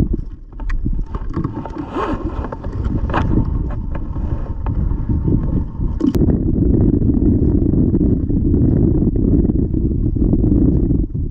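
Wind buffeting the microphone: a loud, steady low rumble, with a few sharp handling clicks and knocks in the first six seconds.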